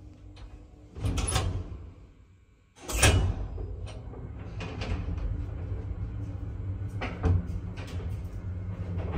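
A 1990s ZREMB passenger lift heard from inside the car. About a second in its door slides shut; just before three seconds there is a loud clunk as the lift starts off, followed by the steady low rumble and hum of the car travelling, with a few clicks near the end.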